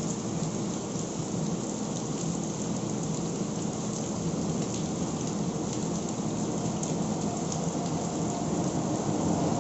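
Heavy cyclone rain falling steadily on leaves, tracks and ground. A low rumble builds slightly near the end.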